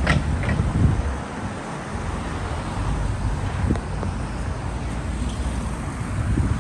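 Wind buffeting a phone microphone, with a heavy low rumble in the first second, over the steady noise of road traffic.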